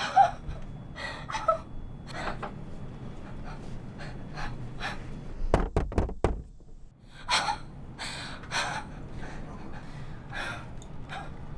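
A woman panting and gasping in quick, short breaths, and about halfway through, four quick knocks on a wooden door.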